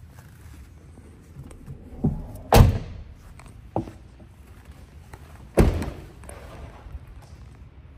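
Doors of a Chevrolet Colorado extended cab pickup slamming shut twice, about three seconds apart, with a couple of lighter knocks around the first slam.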